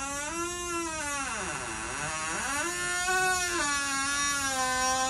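A long, loud, wavering yowl like a cat caterwauling, holding one pitch, then sliding down and back up twice.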